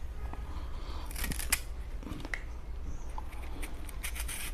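Kitchen knife scraping and paring the thick green skin off a raw banana, in a few irregular short scraping strokes.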